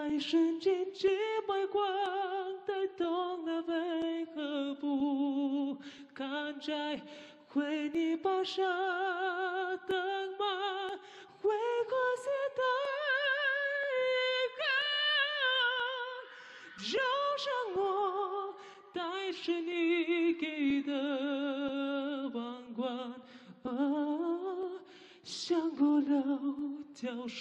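A man singing a Mandarin ballad unaccompanied in a high voice with a wide vibrato, in phrases broken by short breaths. The longest and highest held notes come in the middle, followed by a quick upward swoop.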